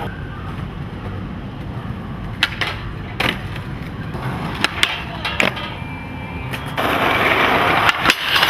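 Skateboard wheels rolling on rough concrete, with several sharp clacks of the board popping and landing. Near the end, a louder scraping hiss as the board slides along a rail.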